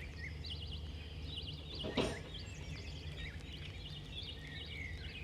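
Small birds chirping and twittering in the background over a low steady hum, with a single short knock about two seconds in.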